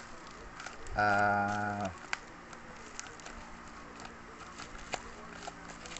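Plastic shipping pouch crinkling and crackling in the hands as it is turned over, in scattered small clicks. About a second in, a man holds a steady 'uhh' for about a second.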